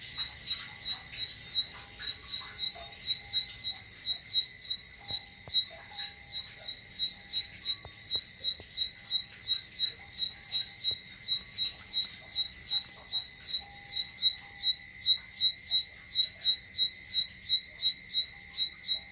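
An insect, cricket-like, calling at night: a continuous high-pitched buzz with sharp chirps that repeat evenly about two and a half times a second.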